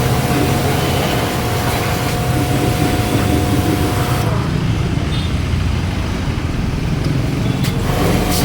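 Electric high-pressure washer running, a steady motor whine with spray hiss over a low rumble. About halfway the whine and hiss cut out, and they come back near the end.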